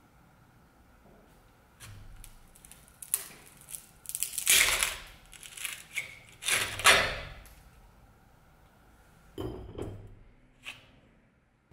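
Old wooden handle being wrenched off a rusty drawknife by hand, the dry, split wood scraping and cracking in several rough bursts, loudest around the middle, followed by a few sharp clicks.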